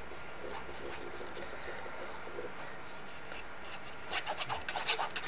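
Hands rubbing and scraping stiff card in a quick run of short strokes starting about four seconds in, as a bottom panel is glued onto a papercraft box. Before that there is only faint steady room noise.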